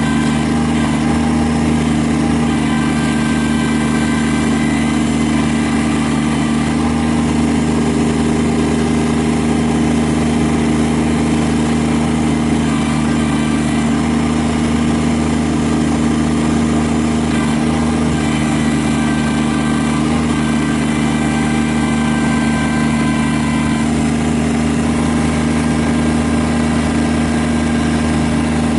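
Kubota BX23S subcompact tractor's three-cylinder diesel engine idling steadily at an even speed.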